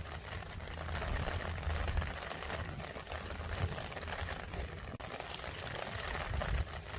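Rain falling steadily, an even hiss of drops, with a low rumble underneath.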